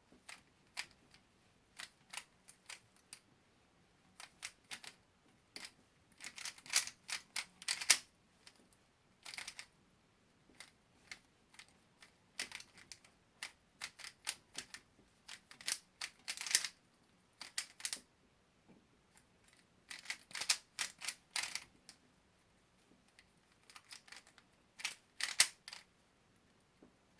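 A 3x3 speed cube being turned fast during a solve: quick flurries of plastic clicks and clacks from the layers turning, broken by short pauses.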